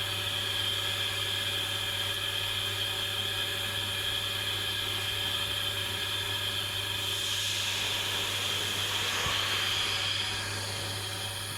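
Steady machinery hum and hiss with a constant high whine, and a faint click about nine seconds in.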